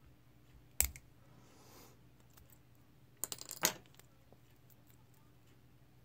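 Sharp metallic clicks from a brass lock cylinder, its key and a tool being handled: a single click about a second in, then a quick run of clicks at about three and a half seconds.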